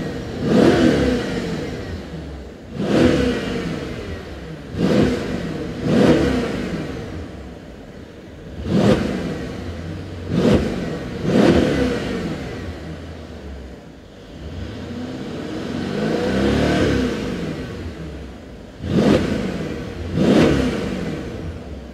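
2014 Mercedes-Benz S63 AMG's twin-turbo V8 being revved in park with its exhaust in sport mode, heard from inside the cabin, with a deep growl. About ten quick throttle blips, each rising sharply and falling back to idle, with one slower, longer rev about three-quarters of the way through.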